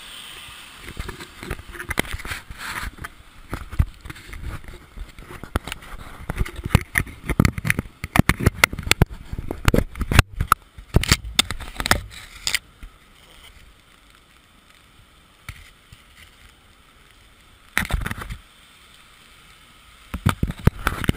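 Handling noise on a GoPro Hero HD camera in its housing: irregular knocks, taps and scrapes as it is held and fitted to its mount. The noise is busiest in the first half, then quieter, with a brief louder rustle about three-quarters through and more taps near the end.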